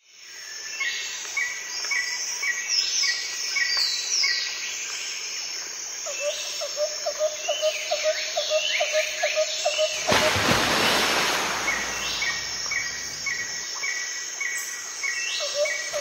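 Outdoor birdsong: several small birds calling with repeated short chirps and quick downward-sweeping whistled notes. A rapid pulsed trill joins about six seconds in and again near the end, and a brief rush of noise comes about ten seconds in.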